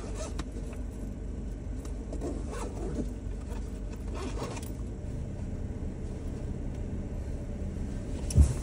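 Low steady rumble inside a parked car, with brief scratchy rustles about two and four seconds in and a dull thump near the end.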